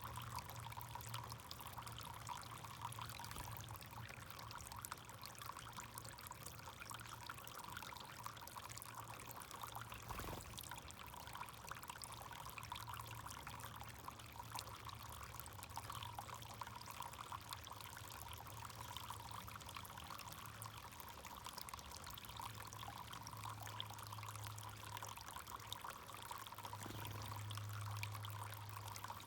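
Backyard fountain water trickling and pouring steadily, with a low hum underneath and one brief click about ten seconds in.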